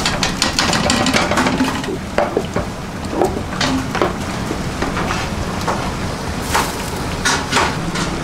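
Okra being stirred into a pot of curry sauce: a spoon clinking and scraping against the pan in irregular strokes, over a steady sizzle and a low hum.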